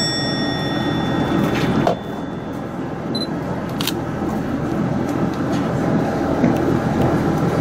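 Steady low rumble of a KiHa 110 diesel railcar heard inside the passenger cabin. In the first second and a half a high ringing tone fades out, and a soft click comes about two seconds in.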